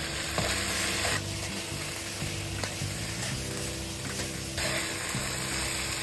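Beef cubes sizzling in hot oil in a nonstick frying pan as a metal spoon scoops them out, with a few light clicks of the spoon against the pan.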